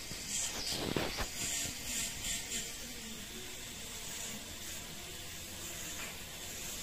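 Electric podiatry nail drill running with a small burr against a toenail, filing it down: a steady high hiss, louder and scratchier in short spells during the first three seconds.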